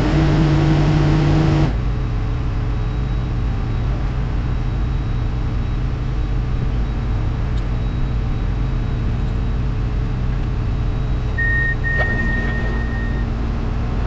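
Heavy construction equipment engines running steadily. The sound is louder for the first couple of seconds, then drops abruptly to a lower, steady running sound. A high, steady beep sounds briefly about eleven seconds in.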